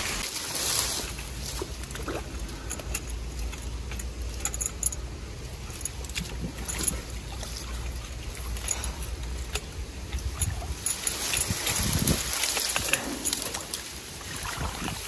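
Tall grass and reeds rustling, with scattered light clicks and clinks of spearfishing gear and some water sloshing in a shallow, reedy pool.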